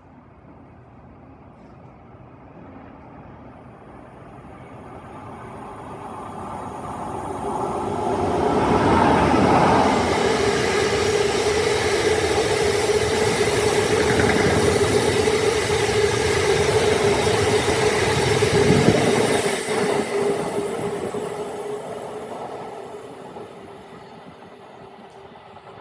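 A train passing through the station: it builds up over several seconds, runs loud for about twelve seconds with a steady whine held throughout, then fades away.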